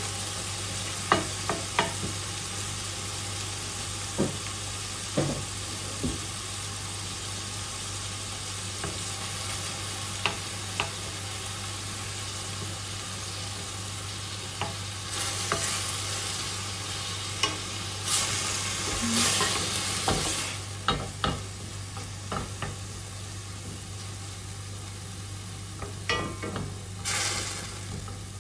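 Chopped tomatoes, capers and lime sizzling in hot olive oil in a stainless steel frying pan, with a wooden spatula knocking and scraping against the pan as it stirs. The scraping gets busier around the middle and again near the end.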